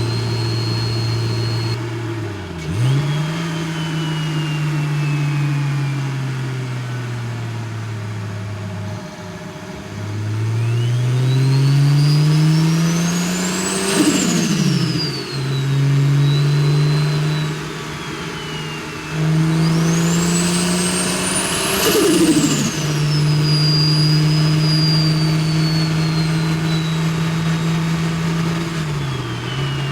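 BMW N54 straight-six with a big single-turbo conversion, driven in several gears with the engine note rising and dropping between shifts. It makes two hard pulls, each with a turbo whistle rising steeply to a high peak, then a short fluttering chatter as the throttle closes and a falling whistle as the turbo spools down.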